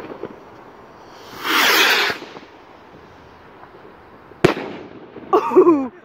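A firework rocket launching with a loud whooshing hiss for just under a second, then bursting with a single sharp bang about two and a half seconds later. A brief pitched sound falling in pitch follows near the end.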